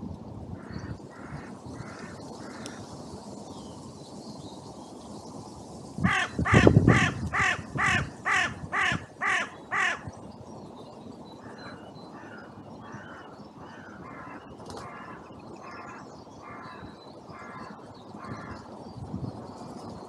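Carrion crows cawing. A few faint caws, then one crow close by gives about nine loud caws in quick succession, about two a second, followed by a longer run of fainter caws from further off.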